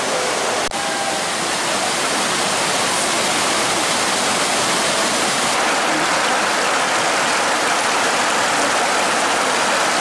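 Waterfall water rushing over wide rock slabs into a pool: a loud, steady rush, with a brief click just under a second in.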